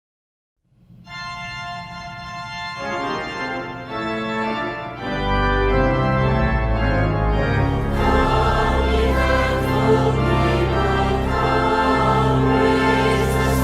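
Organ playing a hymn introduction. It starts softly about a second in and swells, with deep bass notes joining about five seconds in.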